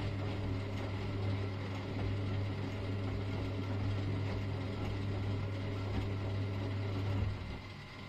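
Early-1970s V-Zug Adora 4 washing machine running: a motor inside it gives a steady low hum, which cuts off suddenly about seven seconds in.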